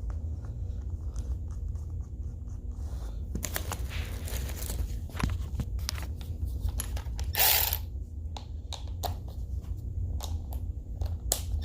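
Light clicks, taps and scrapes of hinge parts, bushings and washers being handled and fitted by hand, with a louder scraping rustle about seven and a half seconds in, over a steady low hum.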